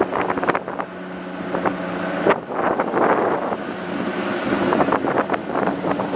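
A vehicle's engine running at a steady pitch while on the move, with wind buffeting the microphone and frequent small knocks and rattles.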